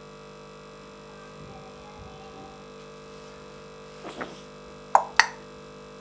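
African grey parrot giving a short vocal sound about four seconds in, then two sharp clicks about a quarter second apart, over a steady electrical hum.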